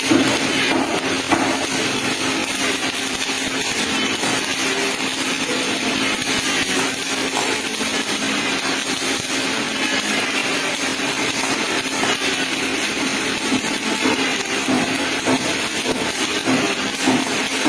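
MIG welding arc crackling steadily without a break, with a steady low hum underneath.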